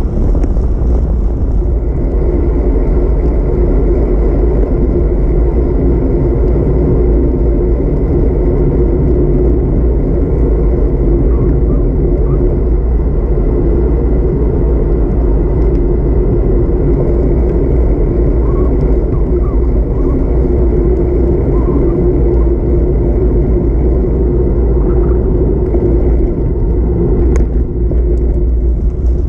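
Steady rumble of wind over the microphone and tyre noise on asphalt from a road bike rolling along at speed.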